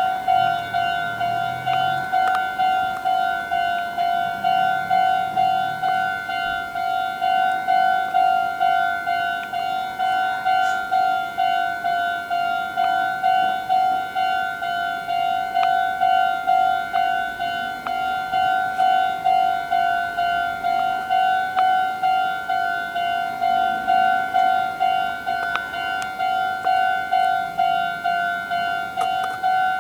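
Japanese railway level-crossing warning bell ringing, a pitched electronic ding repeating about twice a second, the signal that a train is approaching and the crossing is closed.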